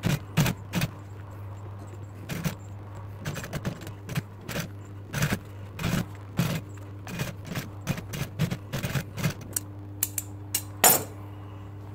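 Seiko industrial sewing machine stitching vinyl upholstery in short, uneven runs of needle strokes over a steady motor hum. One sharp, loud click comes near the end.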